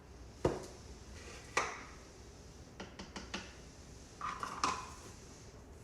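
Kitchen utensils and containers being handled while measuring ingredients: a few separate light knocks, a quick run of small taps around the middle, and a short clink near the end.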